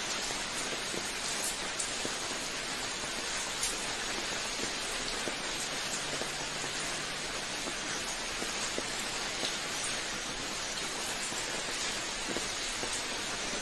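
Steady rain falling: an even hiss with scattered individual drops standing out as small ticks.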